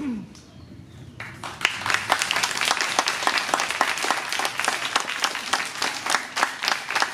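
Audience of parents applauding, starting about a second in, with many hands clapping at once.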